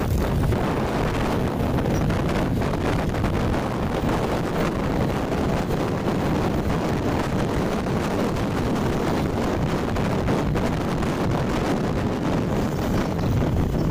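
Wind rushing over the microphone of a moving motorcycle, a steady noise strongest in the low end, with the ride's road and engine noise blended in.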